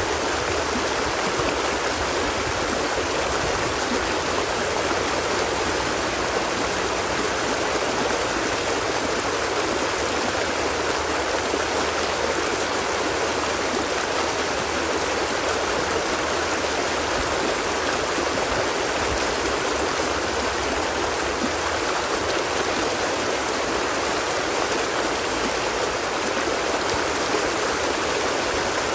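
Water of a stream running steadily, an even, unbroken sound of flowing water.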